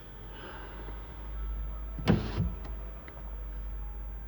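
Kia Sportage's electric sunroof motor running as the glass panel moves, over the cabin's low road rumble. A sharp knock comes about two seconds in.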